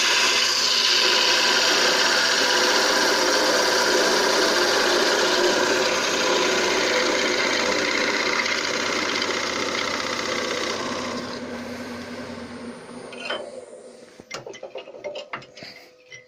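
Wood lathe spinning a spalted birch blank while a turning tool cuts across its end to square it flat: a steady cutting noise of steel on wood. About eleven seconds in the cutting stops and the sound dies away over two seconds, followed by a few light knocks.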